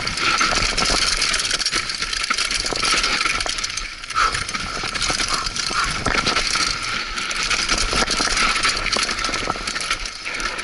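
Mountain bike rolling fast down a rocky dirt trail: tyres crunching over loose stones and gravel, with a constant clatter of small knocks and rattles from the bike.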